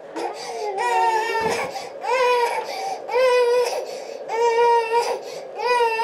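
Tired 18-month-old toddler crying: a string of about five loud wails, each about half a second long and about a second apart, each rising in pitch at its start.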